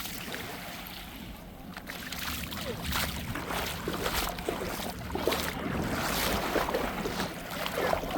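Seawater splashing and sloshing, with wind buffeting the microphone.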